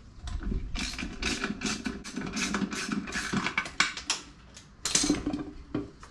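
Lug nuts being worked off a wheel hub with a wrench: a run of irregular metal clicks and scrapes.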